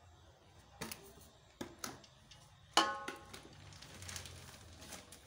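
A bowl knocking against the rim of a metal cooking pot as boiled rice is scooped and tipped in: a few dull knocks, then, about three seconds in, a louder clank that rings briefly.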